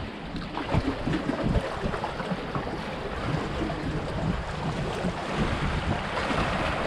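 Small sea waves washing and splashing against shoreline rocks, with wind buffeting the microphone in irregular low gusts.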